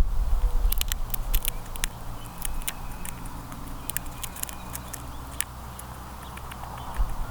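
Quick, irregular clicks and taps close to the microphone, small animals pecking and cracking seed. They are densest in the first few seconds, over a low rumble that fades after about two seconds.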